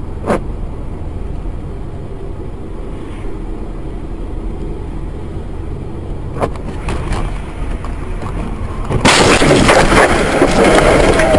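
Steady road and engine rumble from a moving vehicle, with a couple of sharp clicks; about nine seconds in, a sudden loud collision noise breaks in and stays loud.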